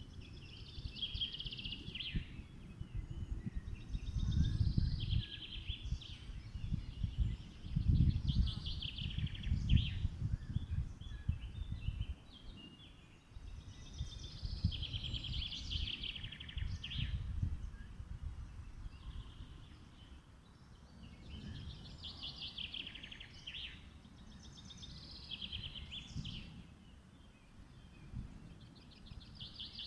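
Songbird singing short trilled phrases every few seconds, over a low, uneven rumble of outdoor noise.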